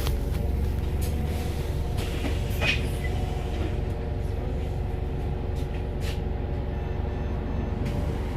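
Volvo B5TL double-decker bus with a ZF gearbox running steadily: a low rumble with a steady whine of several tones on top, and a few light clicks and rattles.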